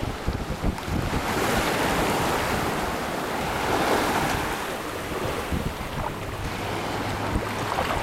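Small waves washing over shallow sand at the water's edge, the surf swelling to its loudest in the middle, with wind buffeting the microphone.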